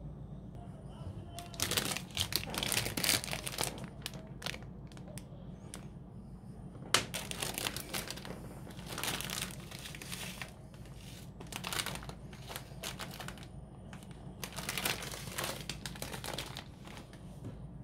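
A sheet of paper crinkling in several bursts as it is handled, with a steady low hum underneath.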